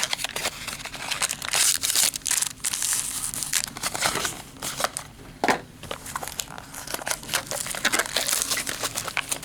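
Trading card pack wrappers crinkling and crackling in the hands as packs are pulled out of a tight mini box and opened, an irregular run of sharp crackles.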